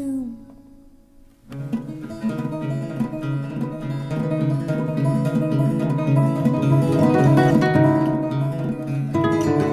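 Background music: after a brief fade to near quiet, a plucked-string instrumental passage of a folk song starts about a second and a half in and continues over a steady low bass note.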